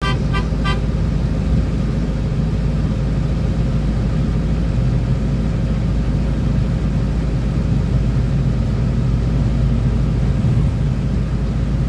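Vehicle driving along a road: steady engine and road rumble with a low hum. Three short, quick beeps sound right at the start.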